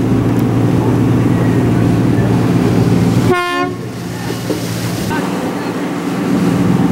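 Fishing boat's engine running steadily, with one short horn blast a little over three seconds in.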